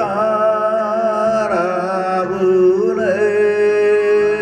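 A man singing a Japanese ginei kayō line in shigin style over a backing track, the voice wavering through slow melismatic dips and rises, then settling into a long held note about three seconds in.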